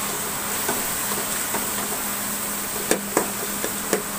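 Onion-tomato masala with ground spices sizzling in oil in a large aluminium pot while it is stirred with a metal slotted spoon. From about three seconds in the spoon clinks sharply against the pot a few times.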